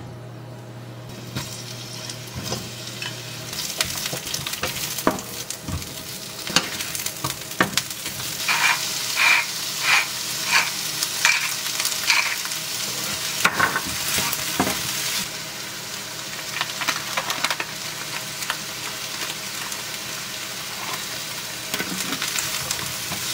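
Mushrooms and onion sizzling in a hot frying pan, stirred with a wooden spatula that knocks and scrapes against the pan. About a third of the way in, a spice grinder is twisted over the pan about six times in a row.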